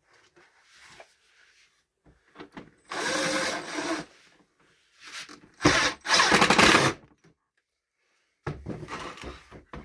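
Power drill driving a screw into the vacuum's housing: two short runs of about a second each, the second louder. Light handling clicks near the end.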